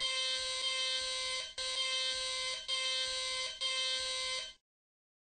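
An electric alarm buzzer sounds four times in a row, each blast lasting about a second with only a split-second break between them, then cuts off suddenly. Each blast is a steady, harsh buzz that steps slightly up in pitch just before it ends.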